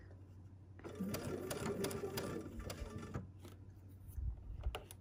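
Domestic sewing machine stitching a short run: it starts about a second in and stops after about two seconds, with a few light clicks and knocks near the end.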